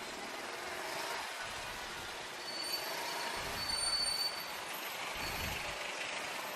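Vehicle noise, like passing road traffic: a steady rumble and hiss that swells twice, with a thin high whine now and then in the second half.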